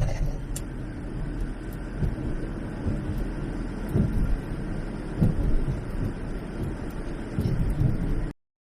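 Low, steady rumble of a car on the road heard from inside the cabin, with a few dull thumps. It cuts off abruptly near the end.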